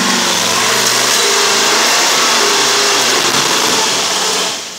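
Off-road rig's engine revving hard under load as it climbs a steep dirt hill, dropping off sharply near the end.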